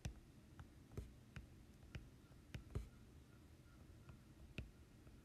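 Faint, irregular taps and clicks of a stylus tip on a tablet's glass screen while handwriting, about eight over five seconds, against near silence.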